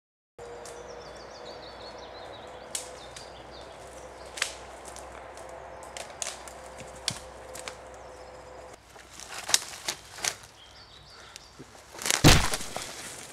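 A person pushing through dense leafy undergrowth on foot: twigs snapping in scattered sharp cracks, with a cluster of snaps and rustles about nine seconds in and a loud brush of branches near the end. A small bird sings a quick run of high notes in the first few seconds.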